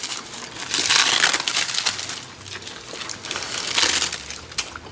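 Close-miked eating: crunching and chewing through soy-marinated raw crab, whose soft shell crackles in two bursts, about a second in and again near four seconds.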